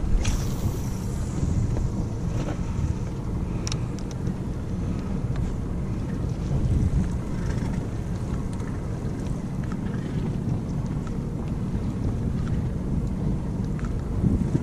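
Steady wind noise buffeting the microphone on a small boat at sea, with a few faint clicks and knocks.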